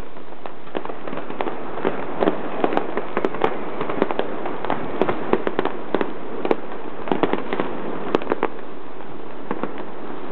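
Fireworks going off: an irregular run of sharp pops and crackles over a steady hiss.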